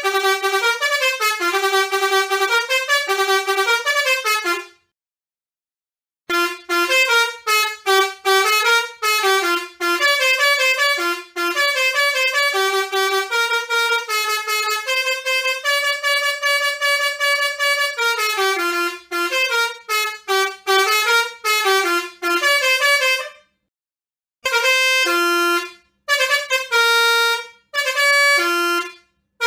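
Bus 'telolet' horns: multi-trumpet musical air horns playing fast tunes of shifting notes, one melody after another. The sound cuts out abruptly about five seconds in and again near the end.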